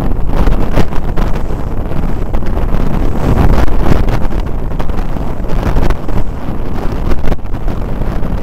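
Strong gusting wind buffeting the microphone, mixed with water rushing and splashing along the hull of an Elliott sportsboat sailing hard upwind.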